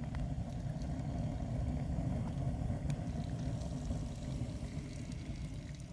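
Water simmering in a Turkish double teapot on a wood-burning stove, a steady rushing rumble with faint crackles from the fire.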